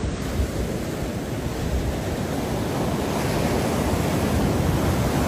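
A steady rushing noise, heaviest in the low end and slowly growing louder, of the kind played as a relaxing background sound.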